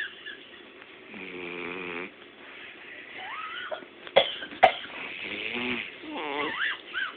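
A dog snoring, with a low, buzzy snore about a second in, and high, wavering squeaks that rise and fall at other moments. Two sharp clicks about four seconds in are the loudest sounds.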